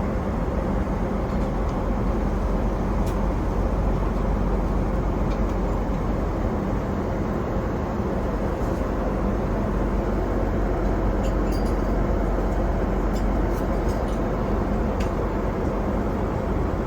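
Steady low rumble and running noise of a vehicle in motion, with a faint hum and a few light clicks.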